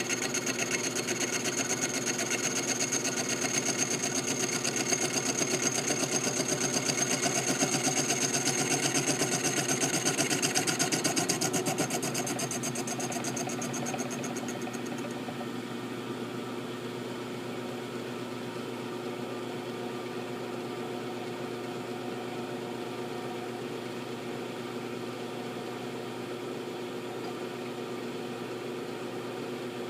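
Milling machine cutting slots into an M1911 pistol slide, with a fine even chatter and a high ringing tone. About twelve seconds in, the high tone fades and the sound drops to the quieter steady running of the machine.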